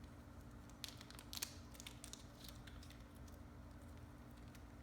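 Faint clicks and light handling noise as a small package of RC hex parts is worked open, with two sharper clicks in the first second and a half, over a low steady hum.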